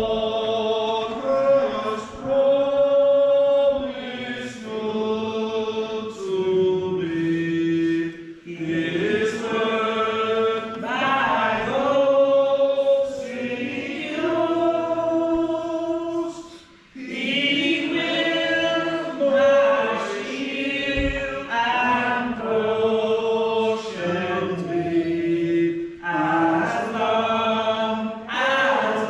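Slow sacred hymn or chant being sung, with long held notes in phrases a few seconds apart and a short break about halfway through.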